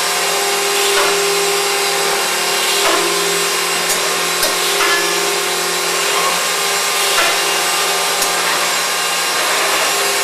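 Accu-Systems VX multi-spindle CNC panel machine running: a steady hum with a held tone from the spinning drill spindles. Sharp ticks come every second or two as the spindles plunge and bore into the wood panel.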